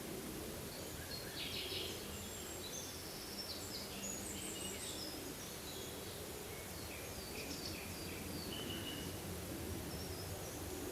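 Forest ambience: several small birds chirping and trilling in short, overlapping high calls, over a steady low rumble.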